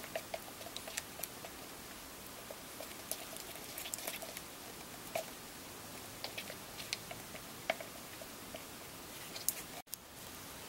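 Stir stick scraping and tapping around the inside of a plastic tub while mixing two-part epoxy resin and hardener: faint, irregular small clicks and scrapes over a steady hiss.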